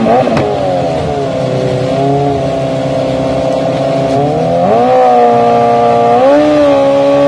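Sportbike engine held at high revs during a burnout, the rear tyre spinning against the stand. The pitch dips right at the start, then climbs in steps about two, five and six seconds in.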